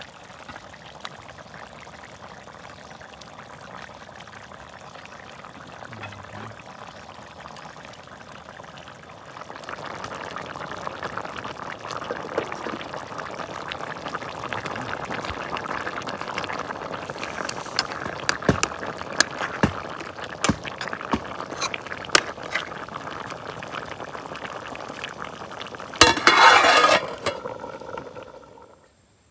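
Chicken curry boiling and bubbling in a wok over a wood fire, louder from about nine seconds in, after the mushrooms go in, with scattered sharp pops. Near the end a steel plate clatters down onto the wok as a lid.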